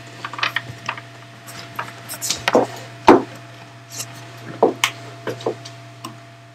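Handling noise from a laptop camera being picked up and moved about: irregular knocks, taps and rubs against a wooden desk, over a steady low hum.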